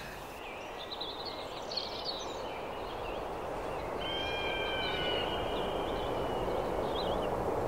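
Outdoor ambience of birds chirping over a steady rushing noise. The noise swells slightly about four seconds in, where a few longer high held notes sound for a couple of seconds.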